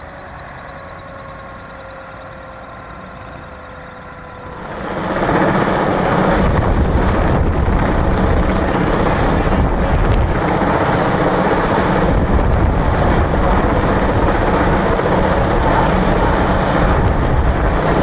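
Heavy-lift helicopter running: a quieter steady whine at first, then from about five seconds in, loud, steady rotor and engine noise as the helicopter flies with a slung load.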